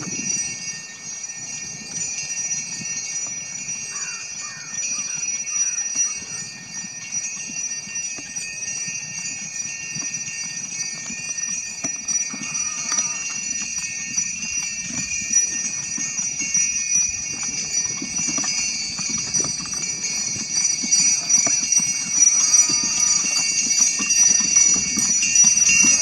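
Harness sleigh bells jingling continuously as a horse moves, growing gradually louder.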